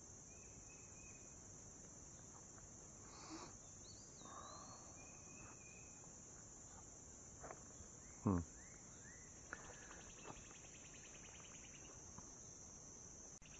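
A steady, high-pitched insect chorus, with a few faint bird chirps and whistles scattered through it and one soft thump about eight seconds in.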